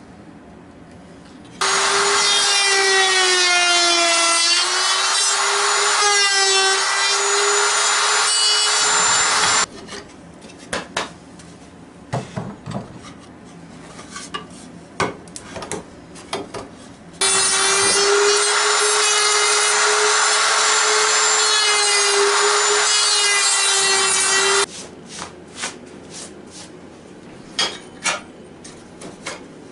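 Router with a straight bit cutting dovetail pins in old-growth southern yellow pine on a dovetail jig, in two runs of about eight seconds each. The motor gives a steady high whine whose pitch sags a little under load. Between the runs there are scattered clicks and knocks as the jig's clamps are worked and the boards are changed.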